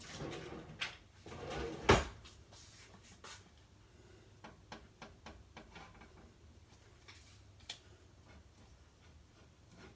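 Kitchen handling noises: a rustling clatter over the first two seconds, ending in one sharp knock, then faint scattered clicks and taps. Near the end a spoon spreads cottage cheese in a glass baking dish.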